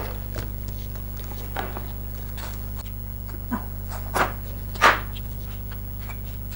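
Plates and cutlery clinking and knocking in scattered short strikes over a steady low electrical hum. The loudest knock comes about five seconds in.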